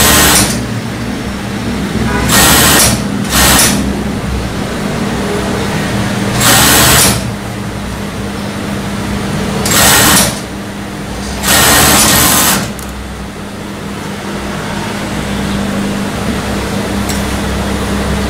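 Industrial four-thread overlock machine (serger) stitching a sleeve seam in about six short runs, each a second or less, over a steady low hum between runs.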